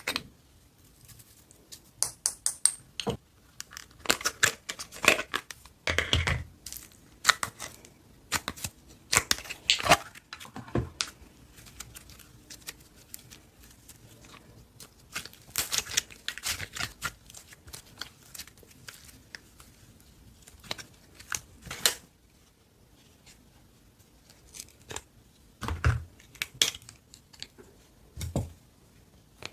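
Slime being squeezed, stretched and poked by hand: irregular sticky crackles, clicks and pops in bunches, with a quiet stretch about two-thirds through and two duller low thumps near the end.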